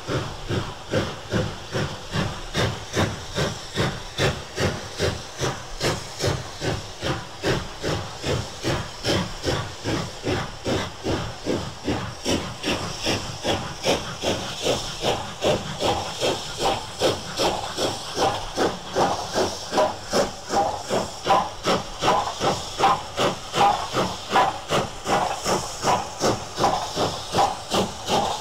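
LNER B1 class 4-6-0 steam locomotive No. 61341 working slowly but steadily, its two-cylinder exhaust beating evenly at about two beats a second. The beats grow louder in the second half.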